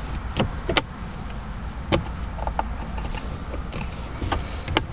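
Plastic center-console trim being handled and worked loose from its clips, giving a handful of sharp clicks and knocks over a low steady rumble.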